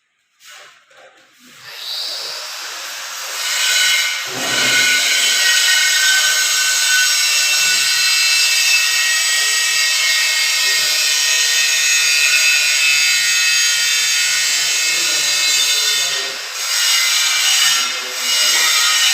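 Electric power tool running steadily with a high whine as it works a material. It starts about two seconds in, comes up to full speed, and eases off briefly twice near the end.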